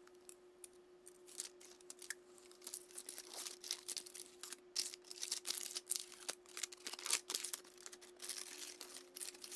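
Protective paper backing being peeled off an acrylic panel by hand, crackling and crinkling in quick irregular bursts that get busier after the first couple of seconds. A faint steady hum sits underneath.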